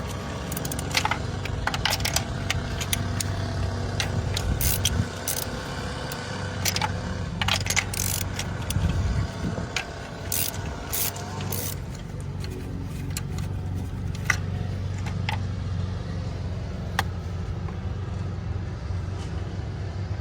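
Metal hand tools clinking, clicking and scraping in irregular bursts during spark plug removal, over a steady low hum.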